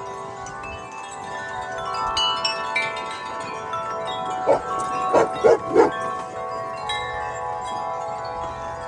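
Wind chimes ringing in the wind, many overlapping tones sounding and fading as the tubes are struck. About halfway through, a dog barks four times in quick succession, louder than the chimes.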